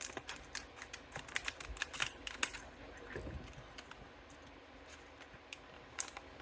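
Light clicking and rattling of a Master Lock padlock being handled, thick over the first two and a half seconds, then a few scattered clicks near the end.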